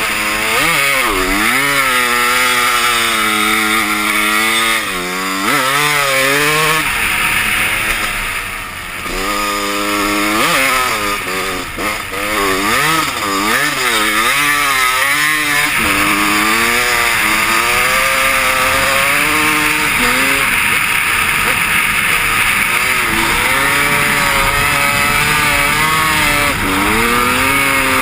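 Two-stroke dirt bike engine, a Honda CR250, revving up and down again and again as the throttle is opened and closed, with a brief drop in engine sound about eight seconds in.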